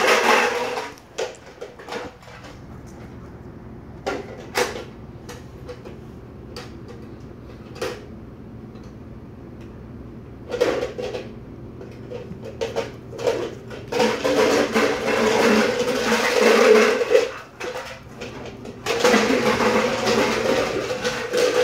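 A man making a long, harsh noise with his voice at a bulldog, twice in the second half, once from about 14 seconds and again from about 19 seconds. Before that come scattered sharp knocks, like stomps on a wooden floor.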